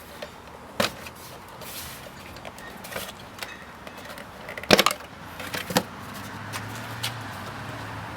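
A few sharp knocks and clicks of things being handled, the loudest a double knock just past the middle. A low steady hum comes in about six and a half seconds in.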